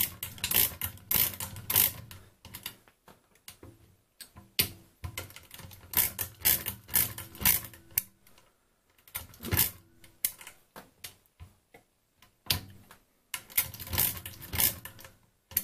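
Feliks-M pinwheel mechanical calculator being worked by hand: the crank is turned round several times in a row, giving rattling, ratcheting clicks of the pinwheels and counter gears. The clicking comes in several bursts with short pauses between them, as the multiplication is worked through.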